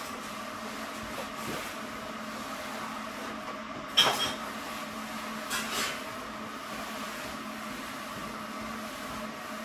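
Steady room hum with a sharp clink of tableware about four seconds in, then two lighter clicks a moment later, as during eating at a table.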